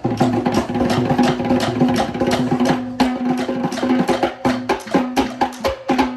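Sri Lankan traditional drum ensemble (Kandyan drum, thammattama, daula, yak bera and bass drum) playing a fast, dense rhythm of sharp interlocking strokes.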